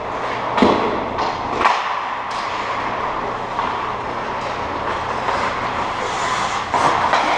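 Ice hockey play: skate blades scraping on the ice, with several sharp clacks of sticks and puck, the loudest about half a second and a second and a half in and another near the end, over a steady low hum.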